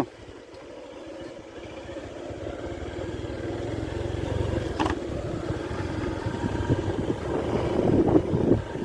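A vehicle's engine and road noise while it drives down a rough dirt road, growing gradually louder, with a sharp click about five seconds in.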